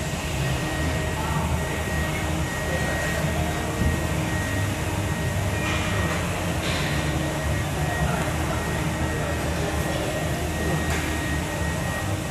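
Steady low rumble of gym background noise, with a few faint knocks scattered through it.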